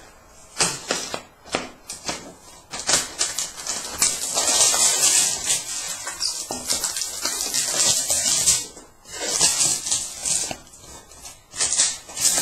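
Packaging being handled: plastic wrapping and cardboard crinkling and rustling in long stretches, with a few sharp knocks in the first two seconds.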